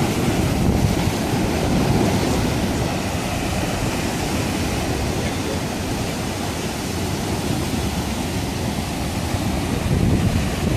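Heavy ocean surf breaking over black volcanic rock and spilling into rock pools: a continuous rush of churning water, with louder surges as waves come in about two seconds in and near the end.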